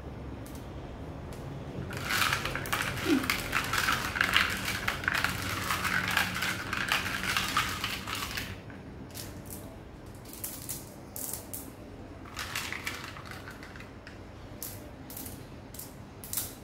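Blue glass decorative marbles clinking and rattling together as they are washed by hand in a basin of water: a dense stretch of rattling for about six seconds, then a few scattered clinks near the end.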